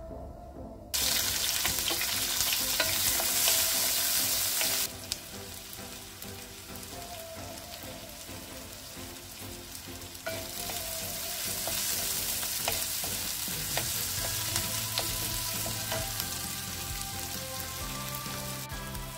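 Chopped onion sizzling in hot oil in a frying pan: a sudden loud sizzle about a second in as it hits the oil, easing after a few seconds, then louder again from about ten seconds in while a spatula stirs and scrapes it around the pan.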